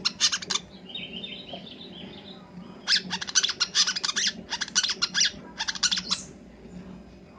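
Brown-throated sunbird singing a fast, high, chattering song full of learned imitated phrases, its natural song no longer heard. It comes in loud rapid runs, with a softer twittering warble between them about a second in, and a long burst of several phrases from about three seconds to six.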